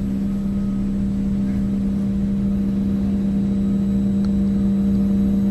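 A steady low hum on one unchanging pitch with overtones, growing slowly louder.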